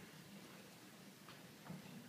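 Near silence: room tone, with a couple of faint ticks about one and a half seconds in.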